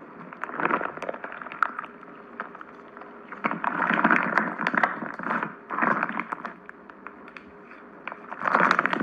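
Clear slime packed with foam cubes being squeezed and stretched by hand, crackling and popping in irregular surges, the longest about halfway through.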